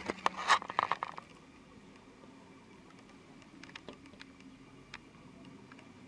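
Handling noise on the camera's microphone: a burst of scraping and clicking in the first second, then only faint scattered ticks.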